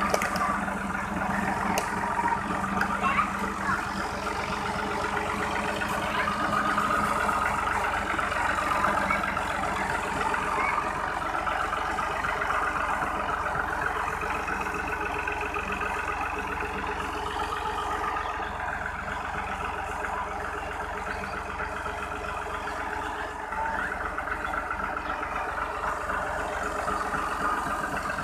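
Ghazi 65 hp tractor's diesel engine running steadily, driving a sugarcane crusher through its PTO shaft.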